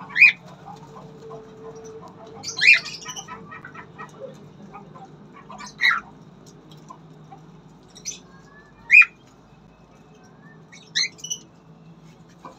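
Cockatiels giving short, sharp squawking calls, about six of them spaced a couple of seconds apart, the loudest at the very start and about nine seconds in, over a faint steady hum.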